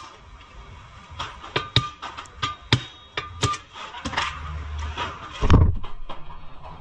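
A run of sharp, irregular metallic clicks and clinks with short ringing, like tools and metal parts knocking together during suspension work, then a low rumble and a heavier thump about five and a half seconds in.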